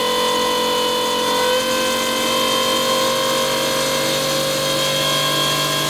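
Aeromotive 3.5 gallon-per-minute brushless spur-gear fuel pump running on a flow test bench at about 60 psi: a steady electric whine whose tone shifts a little about a second and a half in.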